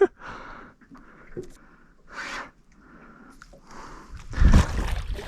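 A person breathing hard in short, breathy puffs about a second apart after a long fight with a fish, with a louder, deeper burst about four and a half seconds in.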